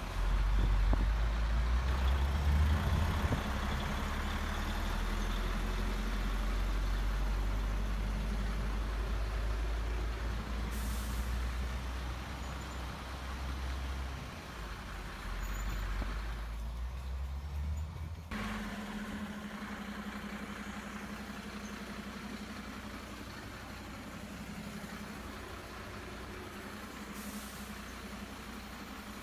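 Simulated diesel truck engine sound from an RC model truck, running steadily with a deep rumble. About 18 seconds in it cuts off suddenly and a quieter steady engine hum takes over.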